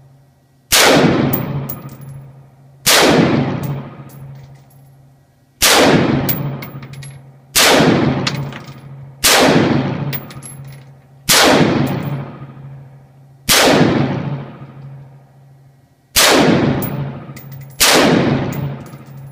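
Nine single gunshots fired at an unhurried pace, each with a long echoing decay, over a steady low hum.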